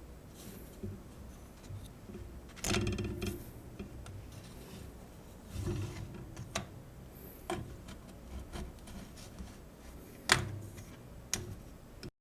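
Knocks, clicks and scraping as a madeleine pan is handled and the baked madeleines are taken out of it, with a longer scrape about three seconds in and the sharpest knock about ten seconds in.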